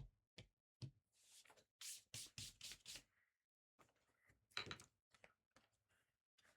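Faint handling of stacked trading-card boxes on a table: a few light knocks and short scraping rustles, the loudest about four and a half seconds in.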